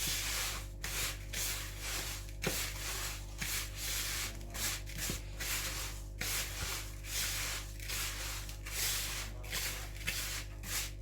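A hand mixing crushed dry biscuit crumbs with melted butter for a cheesecake base: repeated gritty rubbing and crumbling strokes, about two a second.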